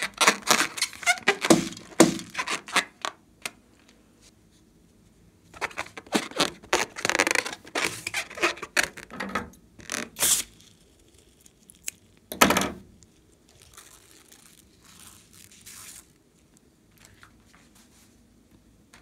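Handling noise from a filled rubber balloon: scraping, squeaking and clicking under the fingers, then scissors cutting it open over a glass bowl of fluffy slime. One loud crack stands out about two-thirds of the way through, followed by faint rustling.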